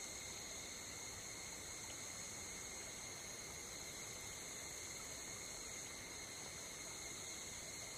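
A steady, faint chorus of insects trilling without a break, over a low hiss.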